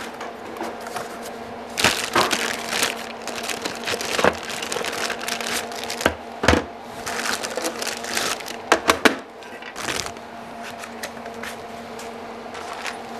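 Cardboard packing and plastic bags being handled and crinkled, with scattered knocks and taps as pieces are set down on a wooden workbench. A steady low hum runs underneath.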